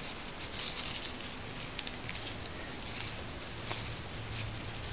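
Fingers handling a ribbon bow and its thread: soft rustling with scattered small ticks and scratches. A low steady hum comes in about a second and a half in.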